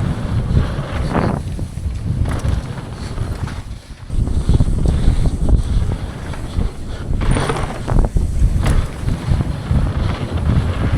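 Wind buffeting the camera microphone on a downhill mountain bike ridden at full speed, over the rumble of tyres on the dirt trail. Sharp clunks and rattles from the bike sound over bumps and landings, several times, and the rumble eases briefly about four seconds in.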